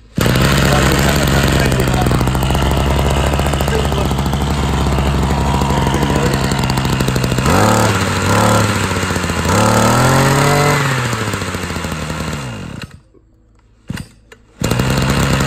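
Small two-stroke brush cutter engine (Ruby 23cc) idling steadily, then revved twice halfway through, its pitch climbing and falling back. It cuts off suddenly; after a two-second gap an engine is idling again near the end.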